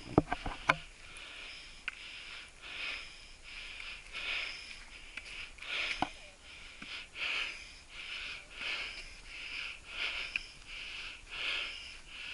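A person breathing hard close to the microphone, in quick, regular breaths about one every 0.7 seconds. A few sharp clicks of camera handling come in the first second.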